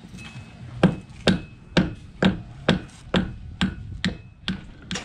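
Hand hammer striking a sailboat's propeller shaft in a steady series of sharp blows, about two a second, working to knock the shaft out.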